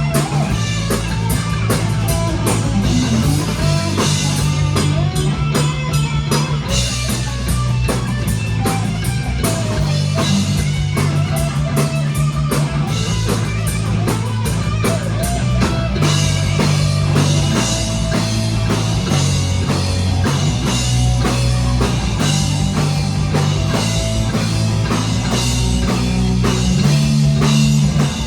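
Rock band playing live: guitars over a driving drum kit.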